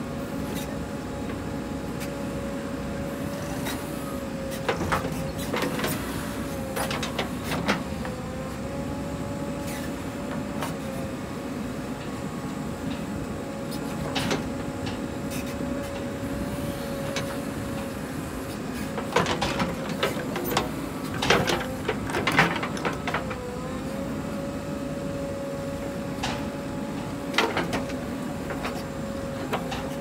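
JCB 3DX backhoe loader's diesel engine and hydraulics running steadily with a constant whine that sags in pitch briefly a few times as the backhoe arm takes load. Scattered clanks and knocks of the bucket and dropping earth come through, thickest about two-thirds of the way through, as the bucket digs soil and dumps it into a tractor trolley.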